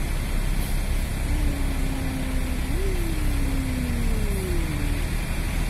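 A bus engine running with a steady low rumble. Its tone climbs briefly about three seconds in and then slides down and fades.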